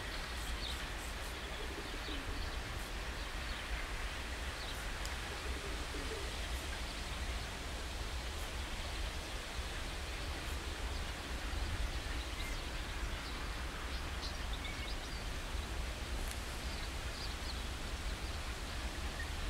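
Steady low rumble and hiss of open-air background noise, with small birds chirping now and then and a dove cooing.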